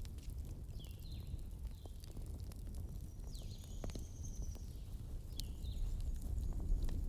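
Bonfire burning: wood crackling with scattered sharp snaps and pops over a low, steady rumble of the flames.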